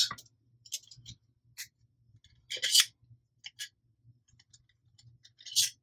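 Scattered light clicks and rattles of Nerf blaster parts being handled, the spring and spring spacers going in, with a louder scrape about two and a half seconds in and again near the end.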